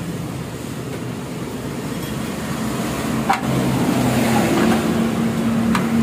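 Honda Vario scooter engine idling steadily through its original muffler; the idle settles a little higher about three and a half seconds in. A single sharp metal tap on the muffler comes just before that.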